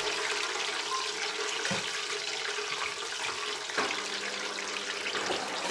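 Breaded pockets deep-frying in the hot oil of an electric deep fryer: a steady bubbling sizzle, with a couple of faint knocks about two and four seconds in.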